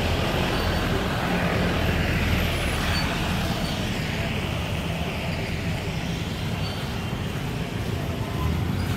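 Steady road traffic noise beside a rain-wet highway: a continuous low rumble with a hiss over it and no distinct passes or events.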